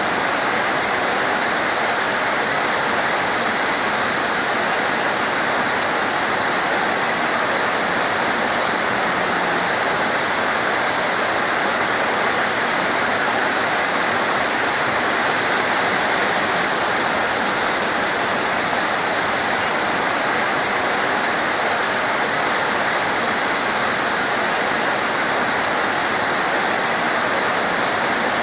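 Torrential rain falling steadily as an even, unbroken hiss. Two brief sharp clicks sound over it, one early and one near the end.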